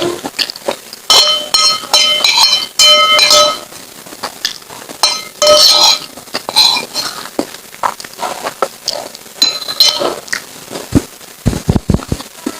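A spoon clinking and scraping against a bowl in several short bursts, each strike leaving a brief ringing tone, with a few soft low knocks near the end.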